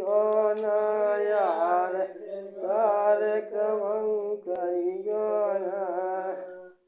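A man singing a Bundeli gari folk song in three long, wavering held phrases; the last one stops shortly before the end.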